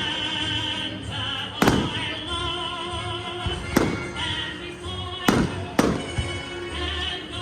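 Fireworks bursting with sharp booms, four in all: one about one and a half seconds in, one near four seconds, and two half a second apart past the five-second mark. Music with singing plays under the bursts.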